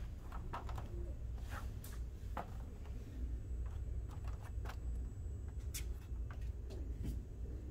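Room tone: a steady low hum with scattered faint clicks and taps.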